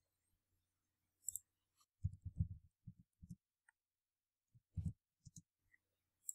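Faint keystrokes on a computer keyboard: short runs of quick taps and single key presses, with a few sharper clicks.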